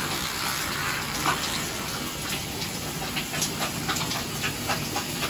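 Bathroom tap running steadily into the sink. Over it, from about a second in, come short, irregular scratching strokes of a toothbrush scrubbing a shark puppet's teeth.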